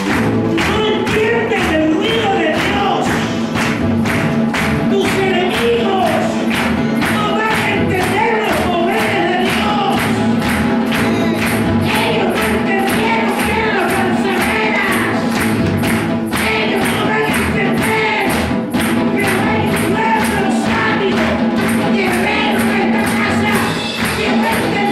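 Live worship music: a band playing a steady beat of about two strokes a second while a group sings along.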